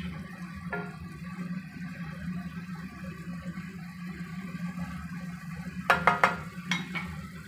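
Cucumbers quietly simmering in a nonstick wok while a wooden spatula stirs them, with a cluster of sharp knocks of the spatula against the pan about six seconds in. A steady low hum runs underneath.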